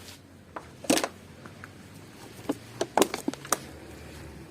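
Plastic water bottle being handled and pierced, giving a scatter of sharp clicks and crinkles: one loud pair about a second in, then a quick cluster of them.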